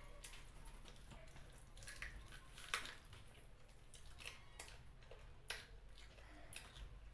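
Faint wet eating sounds of someone chewing chicken feet in curry: scattered mouth clicks and smacks, the sharpest about three seconds in.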